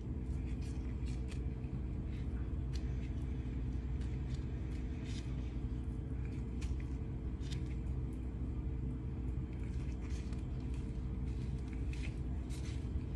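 Steady low hum, with scattered small clicks, scrapes and rustles from plastic-gloved hands and a knife trimming raw chicken.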